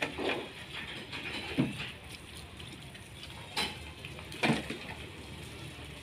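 A large plastic water jug being lifted and handled at a radiator, giving four short knocks and clunks spread over a few seconds, over a faint steady low hum.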